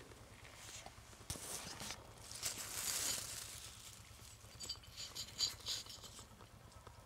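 Close rustling and scraping as a hand brushes through grass and handles a thin metal bar, in several short scratchy bursts that come quickest about five to six seconds in.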